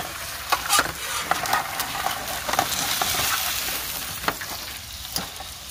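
Meatloaf sizzling in its juices in an aluminum foil pan on a hot griddle, with a metal spatula scraping and clicking against the foil pan several times as it is worked under the loaf.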